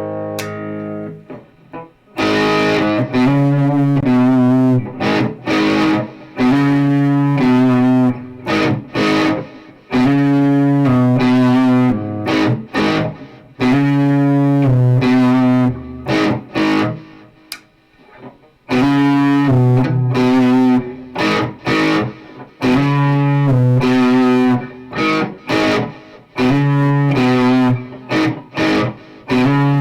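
Electric guitar fitted with Fleor Alnico 5 humbucker pickups, played with distortion: a riff of repeated chords in short, chopped phrases, each cut off with a brief gap between.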